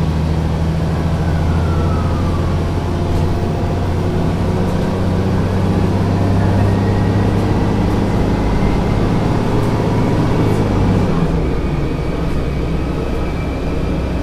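1971 Büssing DE double-decker bus engine heard from on board, running steadily with a faint whine that slowly rises in pitch. About eleven seconds in, the engine note drops lower.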